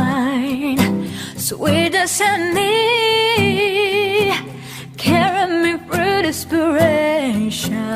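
Acoustic pop cover: a solo voice sings long, held notes with a strong vibrato over soft accompaniment, pausing briefly between phrases.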